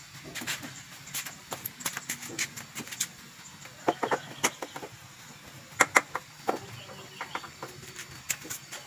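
Scattered sharp clicks and light metal knocks from hands working at the upper mount of a YOKO motorcycle rear shock absorber, irregular and unhurried, with a few louder clacks about six seconds in.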